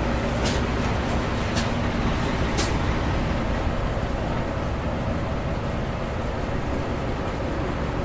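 City bus engine running steadily at a bus stop, a continuous low rumble. Three short sharp hisses come about a second apart in the first three seconds.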